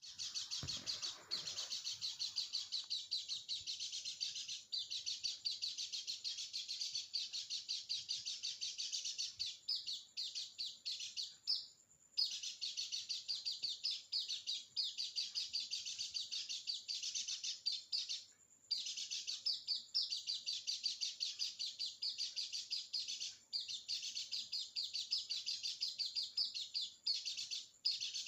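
White-eye (pleci) singing a long, fast, high-pitched twittering song almost without a break, pausing briefly about twelve and eighteen seconds in.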